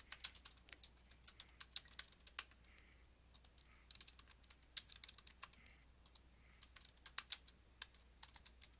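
Typing on a computer keyboard: quick runs of keystrokes, broken by short pauses about three seconds in and again about six seconds in.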